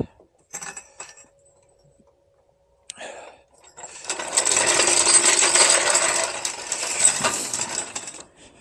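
Hand tool's ratchet mechanism clicking rapidly for about four seconds, starting near the middle, after a few single metallic clicks.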